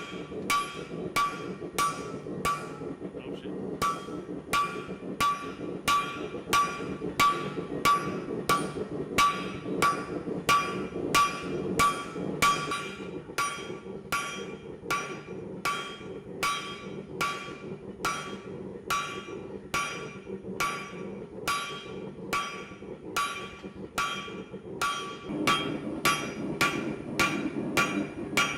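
Hand hammer striking hot steel on an anvil at a steady pace of about one and a half blows a second, each blow with a metallic ring: the wedge side of the hammer fanning out a small bearded axe's blade. A steady low rush runs underneath, and the hammering pauses briefly about three and a half seconds in.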